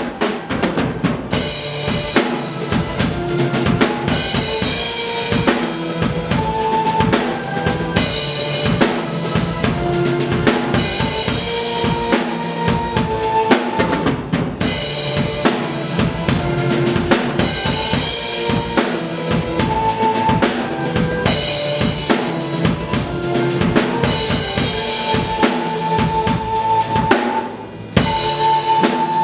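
Drum kit played hard along to a recorded rock song, with bass drum, snare and cymbals over the full band backing, and a brief drop in level a little before the end.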